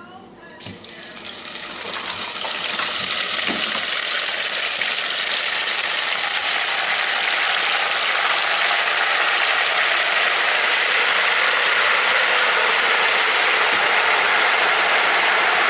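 Hot oil sizzling hard as frozen, cornflake-coated ice cream balls go into the deep-fry pan: it starts suddenly about half a second in and builds over a couple of seconds to a loud, steady hiss.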